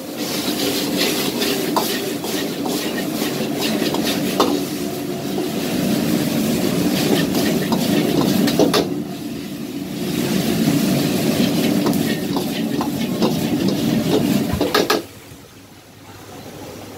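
Stir-frying in a wok over a high-flame gas burner: a steady sizzle and burner roar, with the metal ladle scraping and clanking against the wok. About 15 seconds in, the sizzle drops away sharply.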